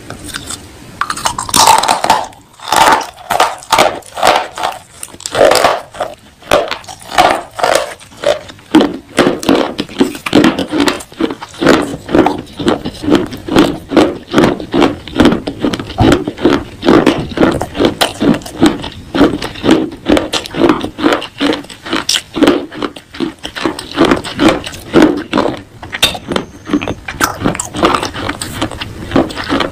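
Close-up crunching and chewing of pieces of baked clay pot: a bite near the start, then steady chewing at about two to three crunches a second, the crunches sharper and brighter in the first few seconds and deeper after that.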